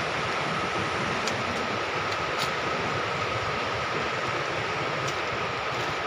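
Steady rushing noise with an even, unbroken high-pitched tone through it, and a few faint ticks.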